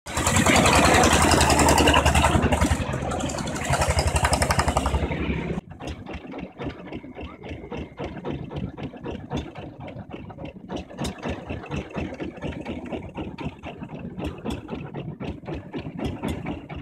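Red single-cylinder diesel engine of a tractor-truck running loud. About five and a half seconds in it cuts off abruptly, and a much quieter, steady puttering of a boat engine follows.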